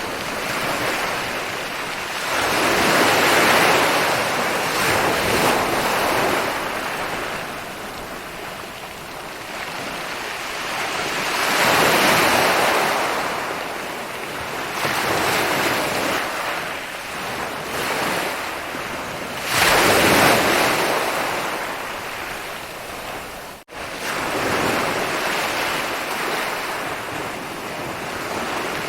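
Ocean waves breaking and washing up a beach: a constant surf wash that swells into louder breakers every few seconds. There is a momentary gap in the sound a little past two-thirds of the way through.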